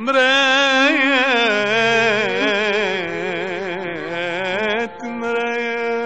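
Arabic song: a long melismatic note with wide, fast vibrato that slides slowly down in pitch, then after a short break near five seconds in, a steadier held note.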